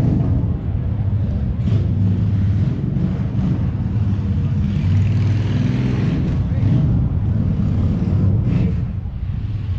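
Motorcycle engine idling steadily with a low, even rumble.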